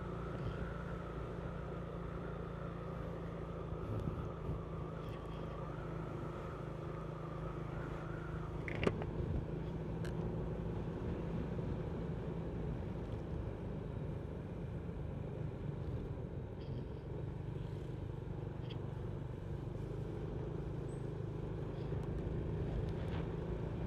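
Steady low drone of a moving vehicle's engine and road noise while driving, with a faint high whine that fades out about eight or nine seconds in and a single sharp click near nine seconds.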